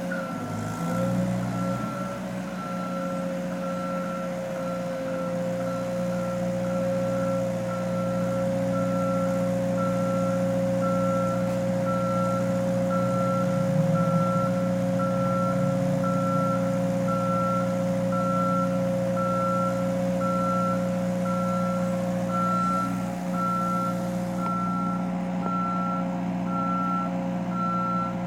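Construction vehicle's reversing alarm beeping steadily, about once a second, over its engine running at a constant speed.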